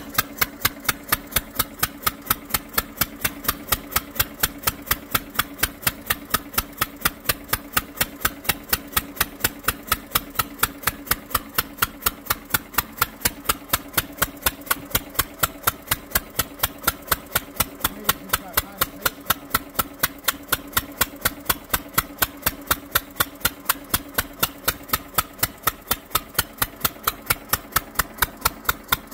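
Fairbanks-Morse Model Z 'dishpan' single-cylinder hit-and-miss stationary engine running, with sharp, evenly spaced beats at about three and a half a second over a steady mechanical hum.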